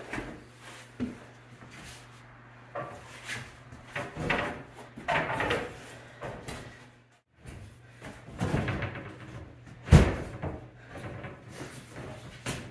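Knocks, scuffs and bumps from a heavy quartz countertop slab being carried in and handled onto base cabinets, with one heavy thud about ten seconds in.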